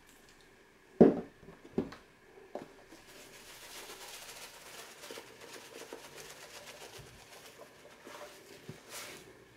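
A few sharp knocks of containers being handled, the first the loudest, then a plastic seasoning shaker shaken over a bowl of chicken salad: a fast, fine rattling patter of seasoning through the shaker holes for several seconds.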